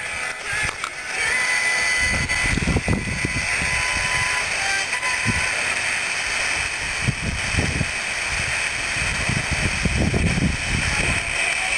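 Homebrew two-transistor super-regenerative FM/VHF receiver being tuned, heard through a small amplifier's speaker: a steady hiss with rough, distorted snatches of broadcast audio and a faint whistle in the first few seconds.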